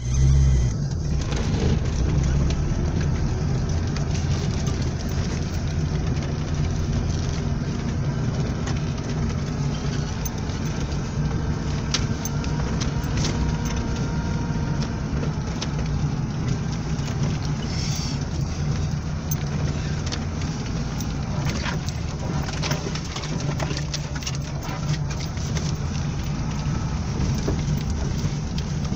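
Lada Niva driving over a rough forest track, heard from inside the cabin: a steady low engine drone, with scattered knocks and rattles from the body and suspension more frequent in the second half.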